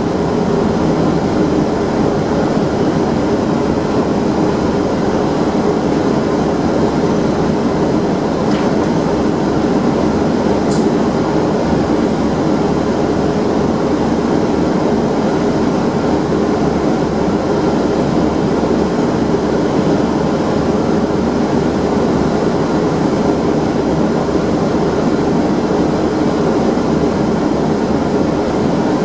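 Steady drone inside the upper deck of a double-decker bus: the engine running and the body and windows humming, continuing unchanged while the bus stands at a red light.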